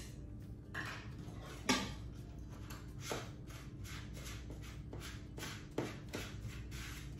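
Wire whisk stirring a dry mix of brown sugar, flour and ground cinnamon in a bowl: a run of short strokes, about two a second, starting about a second in.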